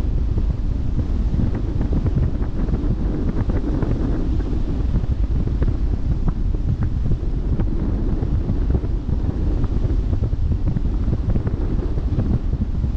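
Wind buffeting the microphone in a steady low rumble, over the wash of the sea against a moving ship's bow.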